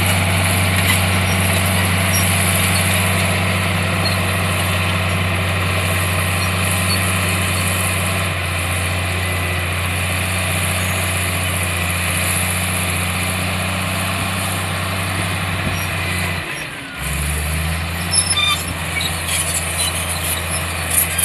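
Heavy earthmoving machine's diesel engine running steadily at a constant pitch. About three-quarters of the way through, the note dips briefly and then settles lower, and a few short sharp knocks follow near the end.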